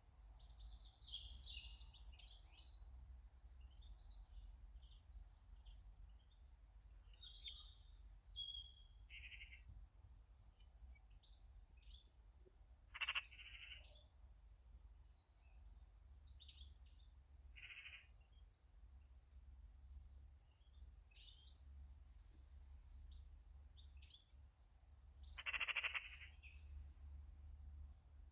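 Small garden birds chirping: scattered short, high calls throughout, with three louder, longer calls spread across the stretch.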